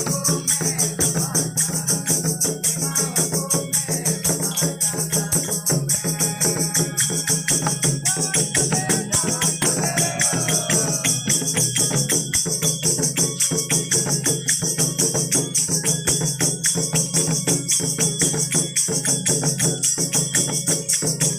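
Santali folk drumming: red clay barrel drums (tumdak') and larger drums beaten hand-struck in a fast, steady rhythm of about four strokes a second, with a constant metallic jingling over the top.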